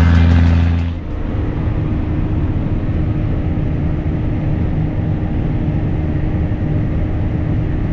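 Cotton stripper running steadily at harvest: an even machine drone with one constant whine through it.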